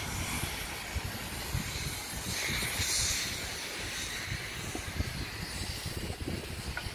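City street traffic noise with an irregular low rumble, and a hissing rush that swells and fades about three seconds in.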